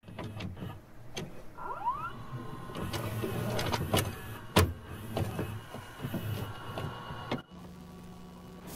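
A VHS cassette being loaded into a VCR: a run of mechanical clicks and clunks with a motor whirring, a short rising whine near the start and one loud clunk about halfway through, then a steady low hum in the last second as the deck goes to play.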